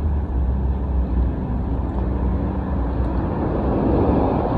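Steady outdoor background noise: a strong low rumble with a hiss above it, swelling slightly near the end.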